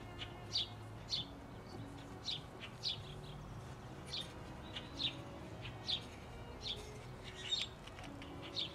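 A small bird chirping over and over, short sharp chirps about two a second.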